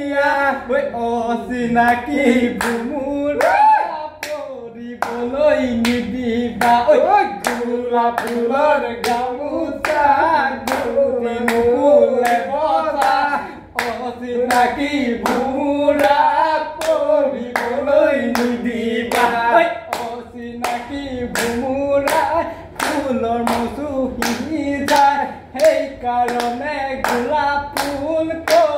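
People singing an Assamese Bihu song, with hand claps keeping a steady beat.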